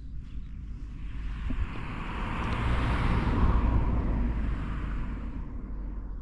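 A car passing by on the road, its tyre and engine noise swelling to a peak about halfway through and then fading away.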